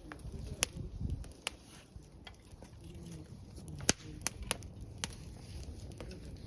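Wood fire crackling: about half a dozen sharp, scattered pops over a low background noise, loudest about four seconds in.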